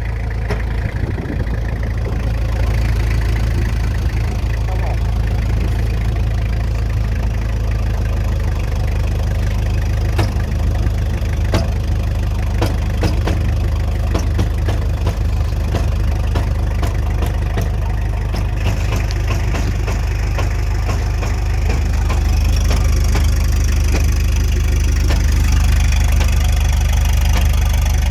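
Irregular cracking clicks from the front driveline of a Toyota Hilux with independent front suspension and new extended CV half shafts, over the steady hum of the running engine. The owner wonders whether the cracking comes from the bearings.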